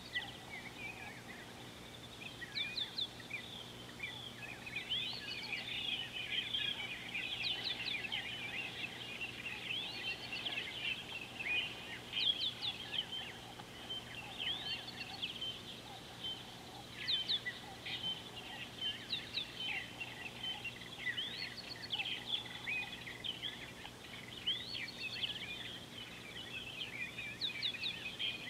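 A dense chorus of birds chirping and calling, many short quick notes overlapping without a break.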